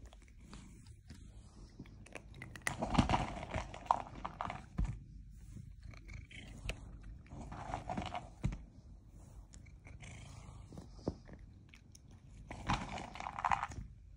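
Domestic cat chewing a treat taken from a hand, heard as three short bouts of crackly chewing, each about a second long, a few seconds apart.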